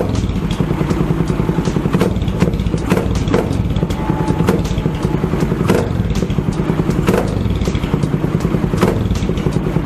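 Motorstar Cafe 400 motorcycle engine idling steadily with a pulsing exhaust beat and occasional sharp knocks or clicks, while the carburetor is tuned for a mixture that runs too rich.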